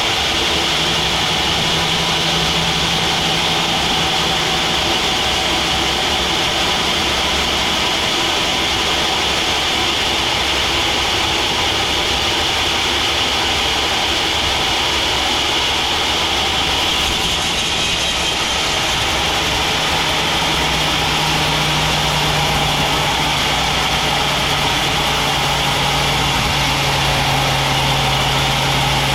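A log band sawmill running steadily: a continuous machine drone with a steady high tone over it. Its low hum shifts a little lower about two-thirds of the way through.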